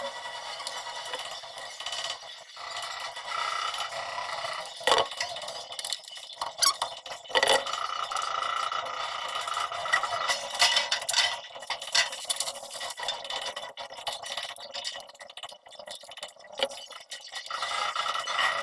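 White PP-R plastic water pipes and fittings being handled, knocking and scraping against each other in scattered clicks and knocks, a few of them louder.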